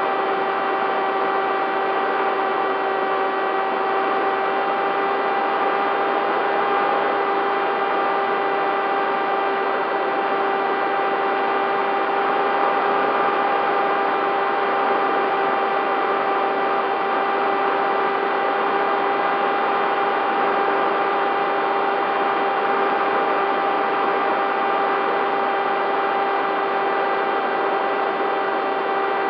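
Bixler 3 RC plane's electric motor and pusher propeller running at a steady throttle, heard from the onboard camera: a constant whine over a hiss of rushing air, with no change in pitch.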